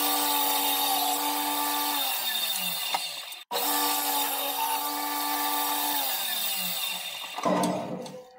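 Table saw motor humming steadily, then dropping in pitch as it winds down and cutting off short; the same pattern comes twice in a row.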